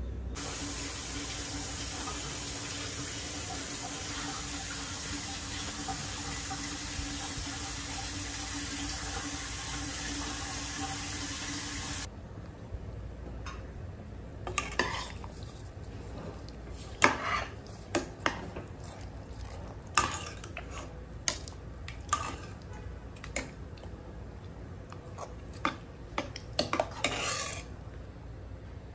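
A steady hiss with a low hum for about the first twelve seconds, cutting off suddenly. Then a metal ladle stirs thick tomato sauce in a stainless steel pot, with scattered sharp clinks and knocks against the pot's side.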